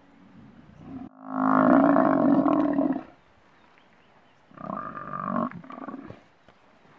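Animal calls at a kill where lions are pulling down a Cape buffalo. A loud, drawn-out call starts suddenly about a second in and lasts about two seconds, and a shorter, quieter call comes about four and a half seconds in.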